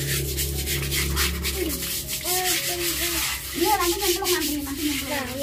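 A stiff hand brush scrubbing a concrete pond wall in quick, rasping back-and-forth strokes. Voices chatter in the background from about two seconds in.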